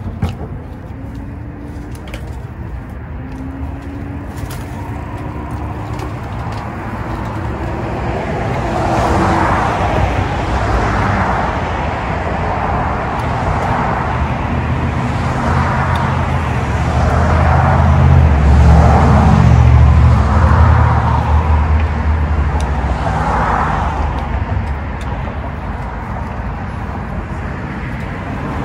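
Road traffic: a motor vehicle's engine running close by, building to a low rumble about two-thirds through and then easing off.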